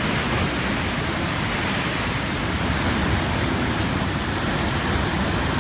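Heavy ocean surf from giant waves breaking and churning: a steady, even rush of water with a deep low rumble, no single crash standing out.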